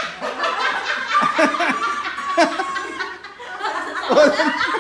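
Several people laughing and chuckling together around a table, with a few spoken bits mixed in.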